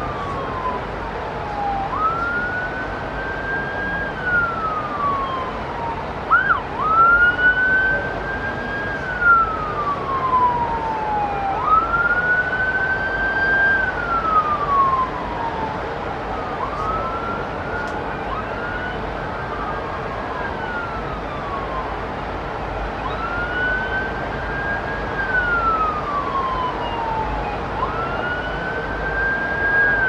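Emergency vehicle siren sounding a slow wail: each cycle rises quickly, holds at the top, then slides slowly down, repeating about every five seconds over a steady background hiss.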